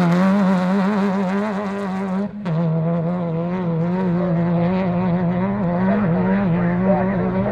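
Class 10 off-road race car engine running at steady high revs, its pitch wavering slightly; it cuts out briefly about two seconds in, then comes straight back.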